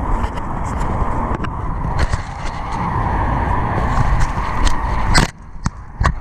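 Hurried footsteps with a loud, steady rumbling noise behind them; the rumble drops away briefly about five seconds in.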